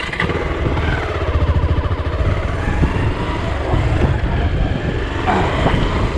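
Motorcycle engine running while riding, mixed with heavy low wind rumble on the microphone.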